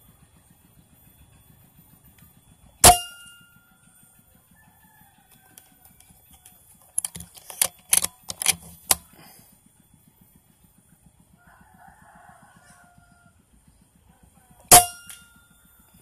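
Two air rifle shots about twelve seconds apart, each a sharp crack with a brief metallic ring, fired to re-zero a scope knocked off after the rifle fell. Between them comes a quick run of about seven sharp clicks from handling the rifle.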